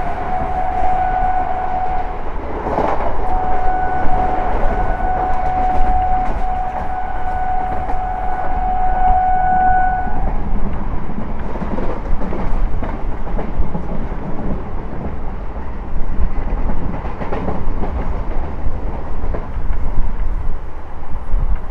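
Electric multiple unit train's horn sounding over the running noise of a fast-moving EMU: a blast of about two seconds, a brief break, then one long blast held about seven seconds, ending about ten seconds in. After that come the steady running rumble and the clicks of wheels over rail joints.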